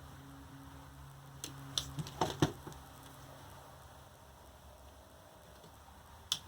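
A few light clicks and taps from handling the lithium-ion scooter battery pack, clustered about two seconds in and once more near the end, over a faint low hum.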